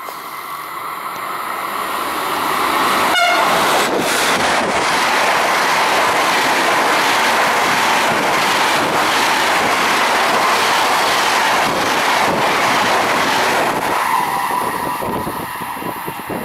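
Locomotive-hauled double-deck passenger train passing through a station at speed. Its noise builds over about three seconds, with a brief falling tone as the locomotive goes by. Then comes a long, steady rush of the coaches on the rails for about ten seconds, and wheel clatter as the tail passes and the noise eases near the end.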